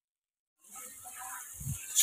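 Sliced onions frying in a hot wok: a steady sizzling hiss that starts suddenly about half a second in, with a short low thump near the end.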